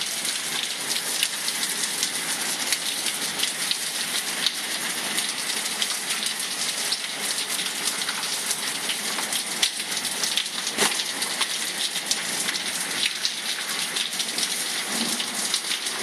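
Heavy downpour: steady hiss of rain with many sharp drop impacts close by, drumming on a translucent canopy roof overhead.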